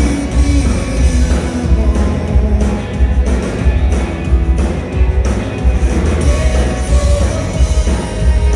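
Live rock band playing loud, with electric guitars, bass and a drum kit; the low end is heavy and dominant.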